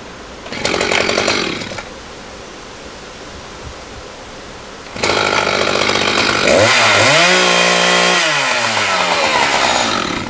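Gasoline chainsaw running in bursts: a short rev about half a second in, then it runs again from about five seconds, revving up, holding high, and falling back down.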